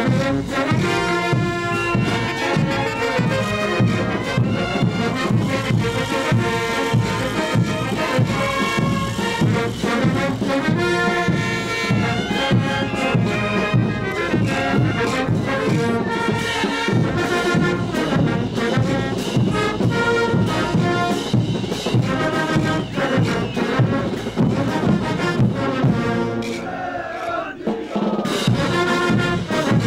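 Brass band of trumpets and trombones playing dance music over a steady drum beat, thinning out briefly near the end.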